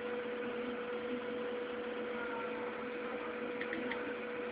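A steady, faint electrical hum over a low hiss, with no other sound standing out apart from a couple of faint ticks near the end.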